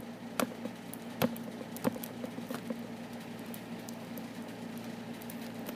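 Hands handling a shrink-wrapped DVD box set, fingers picking at the plastic wrap: a few sharp clicks in the first two and a half seconds, then fainter ticks, over a steady low hum.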